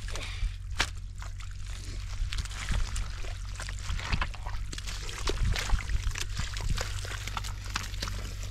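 Water splashing, trickling and pouring in shallow water, with many irregular sharp splashes over a steady low hum.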